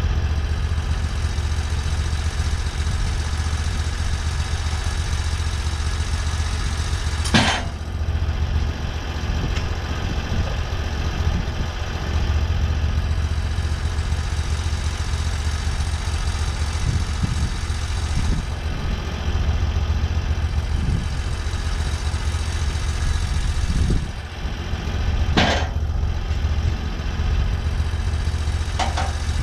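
Engine of a TimberKing portable sawmill running steadily, with a strong low hum. Two sharp knocks stand out, about seven seconds in and again near twenty-five seconds.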